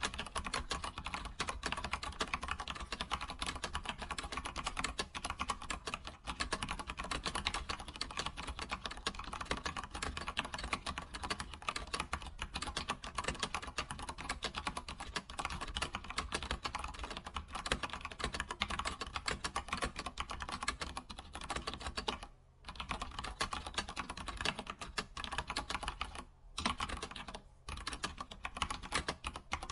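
Computer keyboard typing, a fast continuous run of key clicks that pauses briefly three times in the last third.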